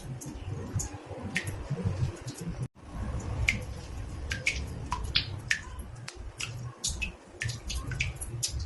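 Water drops falling irregularly into a bathtub, each a sharp plink, about two a second, over a steady low rumble. The sound cuts out for a moment about three seconds in.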